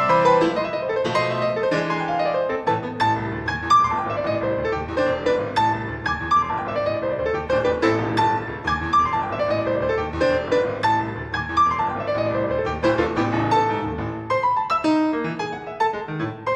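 Solo grand piano played fast: a dense run of quick notes over a moving bass line, loud and unbroken.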